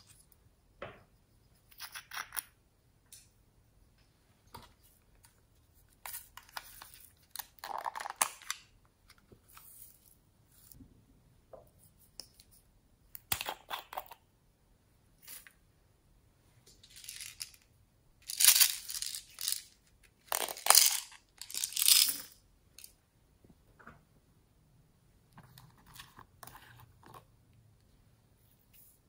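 Small plastic toy containers and a glitter jar handled and opened close to the microphone: irregular clicks, taps and rustles, with three louder spells about two-thirds of the way through.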